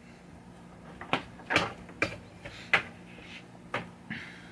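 A plastic zip tie being fastened around a power cord: about six short clicks and light knocks, spaced half a second to a second apart, as the tie is pulled tight and the cord is handled.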